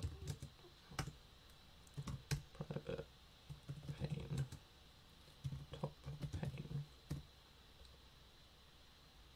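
Typing on a computer keyboard: quick keystrokes in short bursts with brief pauses, stopping near the end.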